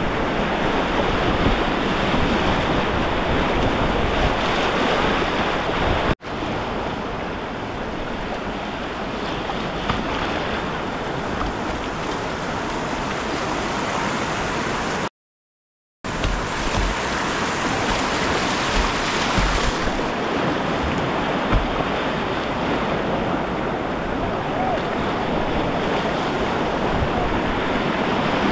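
Steady rush of whitewater rapids around a kayak, with water splashing over the bow. The sound dips briefly about six seconds in and cuts out completely for about a second around the middle.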